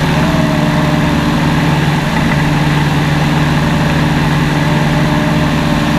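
Engine and propeller of a single-engine propeller aircraft running steadily in flight, a constant loud drone.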